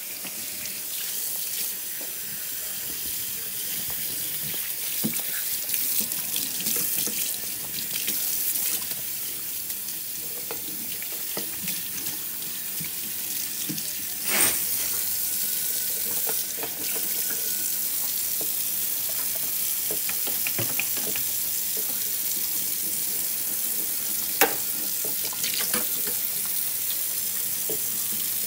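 Kitchen faucet running into a stainless steel sink as a puppy is washed under the stream, water splashing steadily. A couple of sharp knocks sound, one about halfway through and a louder one near the end.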